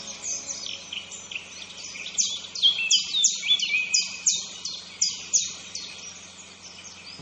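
Birdsong: a run of quick, high chirps that slide downward in pitch, coming in a rapid string that is loudest and densest from about two to five and a half seconds in.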